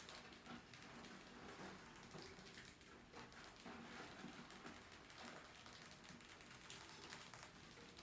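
Faint, irregular scratching and light clicks of mice's claws on a wire fan guard and wooden ramps, over a faint steady hum.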